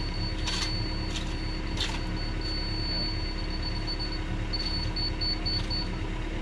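Tracked excavator's diesel engine idling with a steady low hum. A thin high whine runs over it and breaks into short pulses in the last couple of seconds, and a few brief scraping sounds come in the first two seconds, typical of a shovel in sand.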